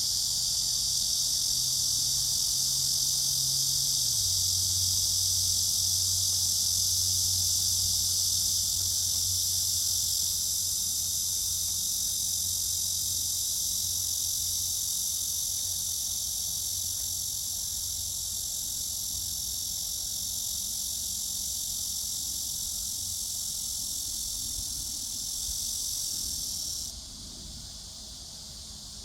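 Cicada buzzing: a loud, steady, high-pitched drone that stops abruptly near the end. A faint low hum lies beneath it throughout.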